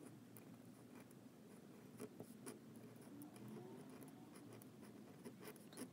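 Faint scratching of a Jinhao fountain pen fitted with a Leonard Principal pointed nib as it writes cursive letters on paper, with a few small ticks of the nib about two seconds in.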